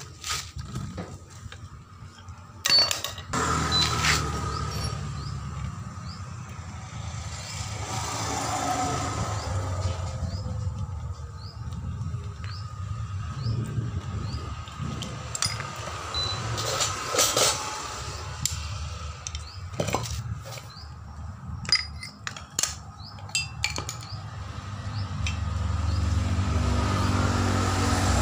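Metal parts of a stripped-down hydraulic bottle jack clinking and knocking against each other as they are handled, in scattered sharp clicks over a steady low rumble that grows louder near the end.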